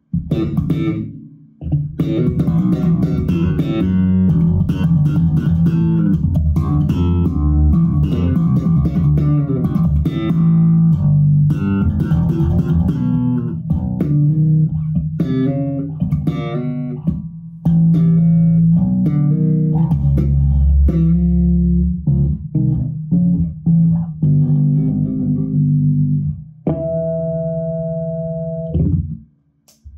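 Six-string electric bass played through a bass amp on its humbucker pickup, a busy run of percussive slapped and plucked notes. The tone knob is partly rolled back to tame the metallic, fret-and-string high end of the slapping. It ends on one held, ringing note that is damped off just before the end.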